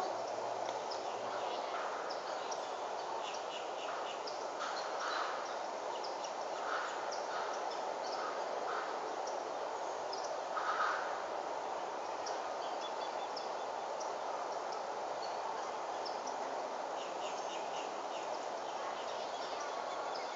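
Outdoor ambience: a steady background hiss with many short bird chirps and calls throughout, and one louder call about eleven seconds in.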